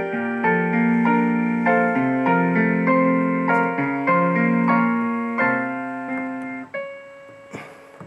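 Electronic piano tune played through a small speaker: a melody over changing chords that stops about two-thirds of the way through, ending on a held note that fades out, followed by a short rustle.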